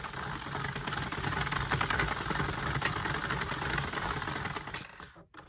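Sentro 40-pin plastic circular knitting machine being hand-cranked: a steady clicking rattle of the needles and carriage going round, which stops near the end.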